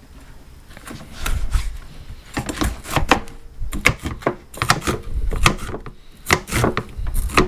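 Kitchen knife chopping a pepper on a cutting board: an irregular run of sharp knocks, many with a dull low thud.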